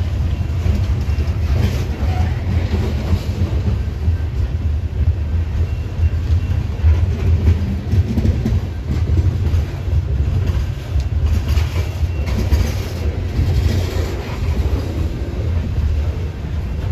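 Loaded-line coal gondola cars of a Union Pacific coal train rolling past close by: a steady low rumble of steel wheels on rail, with the intermittent clickety-clack of wheels passing over rail joints.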